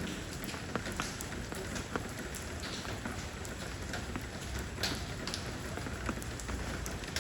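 Steady rain falling on stone, a continuous patter with distinct single drops ticking through it.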